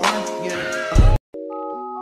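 Music: a track with a beat cuts off abruptly just over a second in, and after a very brief silence a different piece begins with held notes.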